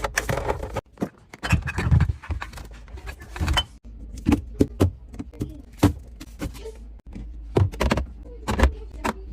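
Irregular knocks, clinks and clatter of food containers, jars and fridge shelves being handled while a refrigerator is cleared out, broken by a few abrupt cuts.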